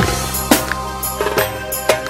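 Instrumental passage of a tallava pop-folk song: a steady drum-kit beat over sustained bass and keyboard notes, with no vocals.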